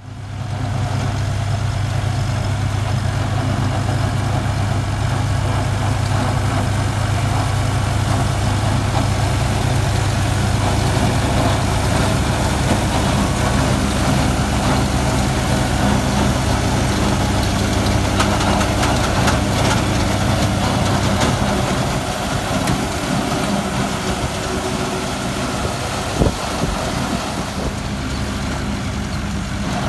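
Massey Ferguson 385's 85 hp four-cylinder diesel engine running steadily under load, driving a PTO wheat-straw chopper whose whirring and blown straw add a steady rushing noise. The deep engine drone gets weaker about 21 seconds in, and a single short knock comes near the end.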